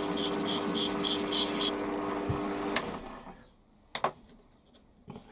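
Warco WM180 mini lathe running with a steady whine while a hand scraper chamfers the edge of a spinning nylon part, giving a rhythmic high ticking. The scraping stops about two seconds in, the lathe winds down about a second later, and a sharp click follows.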